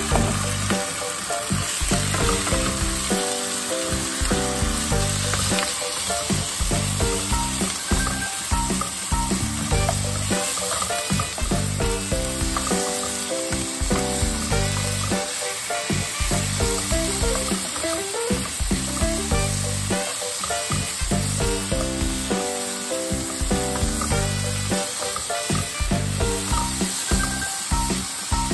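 Chopped onion and raw chicken strips sizzling as they fry in oil in a nonstick pan, stirred with a spatula. Background music plays under the sizzle.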